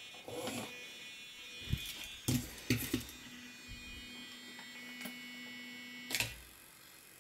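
Small fleaweight combat robot on a wooden board: short whirs of its tiny electric drive motors and a few light knocks, then a steady faint electric buzz for about three seconds that ends with a thump about six seconds in.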